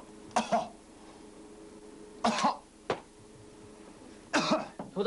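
A man coughing hard in short bouts, several times, to bring up a tooth root loosened in the extraction.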